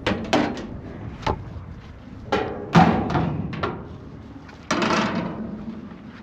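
Knocks and clatter of a sheep feeder being handled and opened to check its feed: a run of sharp separate knocks, then a short scraping rattle about five seconds in.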